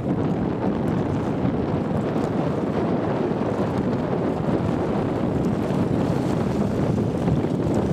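Steady wind buffeting the microphone, a continuous low rushing noise with no breaks.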